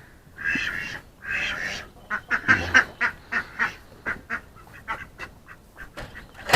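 Ducks quacking: a few quacks, then a quicker run of short quacks.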